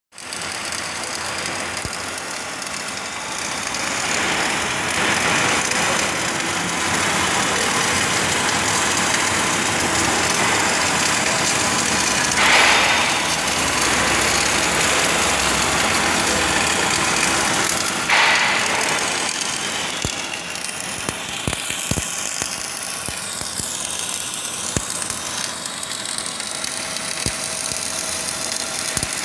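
Two welding arcs burning at once on a steel beam: a continuous sizzling crackle, swelling briefly twice near the middle, with sharp spatter pops in the later part.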